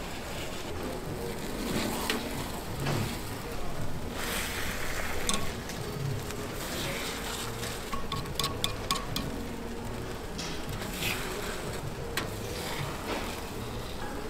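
Giant takoyaki sizzling in a takoyaki griddle while metal picks scrape and tap against the pan as the balls are turned, with a quick run of clicks about eight seconds in.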